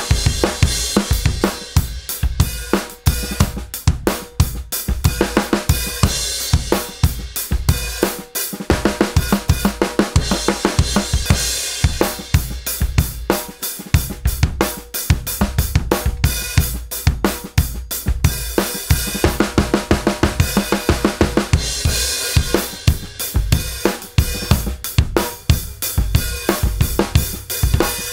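A drum kit playing a steady groove: a 20-inch Rogers Powertone bass drum (clear Evans EQ4 batter, EQ3 reso) struck with a hard felt beater, under a brass snare, hi-hat and cymbals. The bass drum's tuning changes from section to section, with short breaks between grooves. By the middle its reso head sits a perfect fourth above the batter, and near the end its batter sits a major third above the reso.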